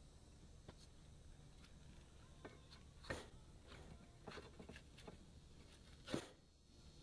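Faint scattered clicks and knocks from handling and stepping on concrete roof tiles, the two loudest about three seconds in and about six seconds in, over a faint steady low hum.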